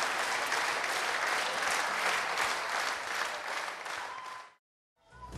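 Large audience applauding steadily, the applause fading out a little after four seconds in.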